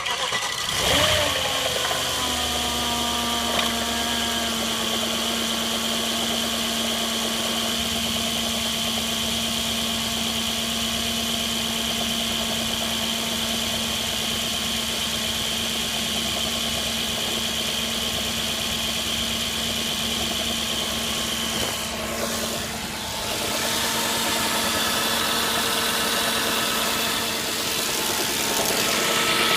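2006 Audi A6 engine starting, its revs flaring and falling back over the first couple of seconds, then idling steadily with a timing chain rattle that the owner says has gotten worse. The engine note dips and changes briefly about twenty-two seconds in.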